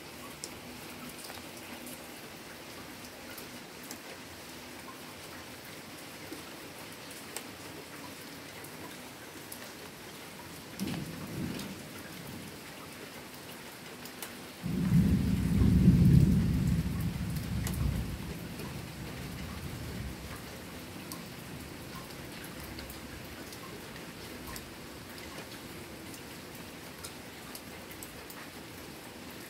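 Steady rain falling, heard as an even hiss. A short low rumble of thunder comes about a third of the way in, then a louder rumble starts suddenly near the middle and dies away over a few seconds.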